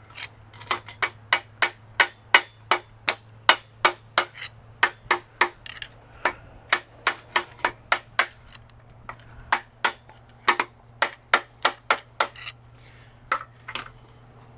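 Hammer blows, about three a second, driving a piston and connecting rod out of a cylinder of a Big Cam Cummins diesel block. The blows pause briefly a little past halfway, then resume and thin out near the end.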